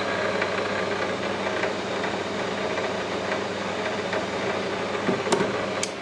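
Scrap wire stripping machine's 1 HP electric motor running steadily with a rattle while insulated wire is fed through its blades, with two sharp clicks near the end.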